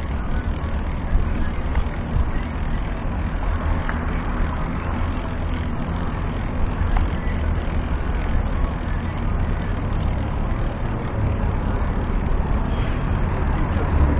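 Steady low rumble and road noise of a vehicle on the move, heard from a camera mounted on it, with wind on the microphone.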